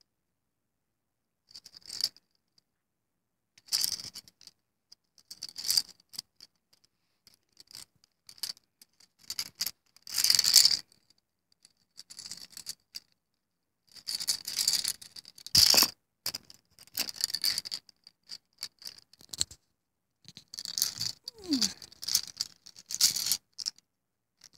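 Plastic baby toy keys on plastic link rings shaken and handled, clacking and rattling together in irregular bursts, with the first burst coming about a second and a half in.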